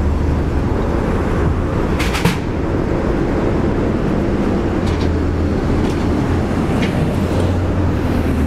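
Steady low rumble of the box truck's engine idling, with a quick cluster of light clacks about two seconds in and a few fainter ticks later.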